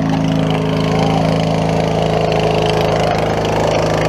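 Craftsman riding lawn mower's engine running steadily at an even speed.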